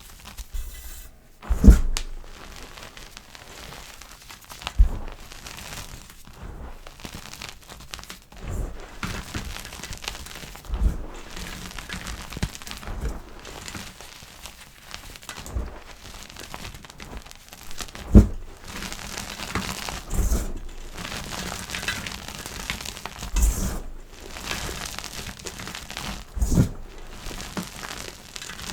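Blocks of gym chalk being crushed, a continuous soft crumbling crackle broken by a dull thump every two to three seconds as pieces give way.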